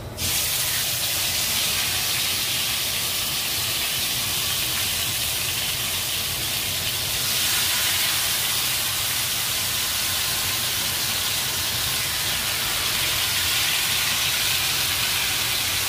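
Marinated pork pieces sizzling loudly in a very hot non-stick wok over a gas flame: a dense, steady hiss that starts abruptly as the meat goes into the pan, the marinade searing on high heat.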